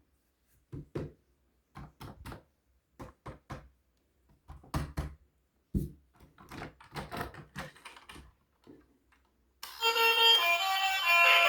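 A series of irregular light knocks and clacks, some single and some in quick pairs, with short silences between. Music starts near the end.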